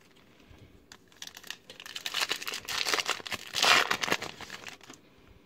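Foil wrapper of a Topps trading-card pack being torn open and crinkled: a run of crackling rustles that starts about a second in and is loudest about two-thirds of the way through.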